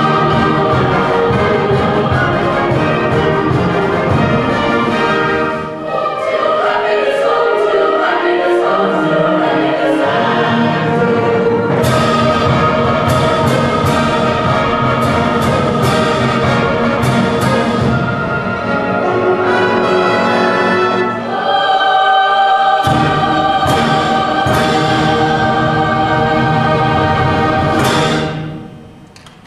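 High school concert band playing held chords, with a run of sharp percussion strikes through the middle; the final chord dies away near the end.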